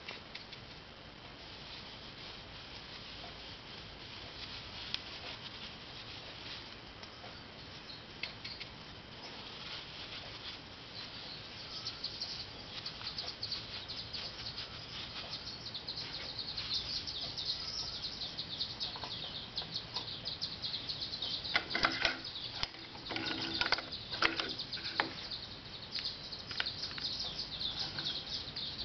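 Paintbrush scrubbing graphite powder onto a motorcycle clutch disc: a dry, fine scratching of the bristles that goes on and off, with a few clicks and knocks of the metal parts being handled about three-quarters of the way through.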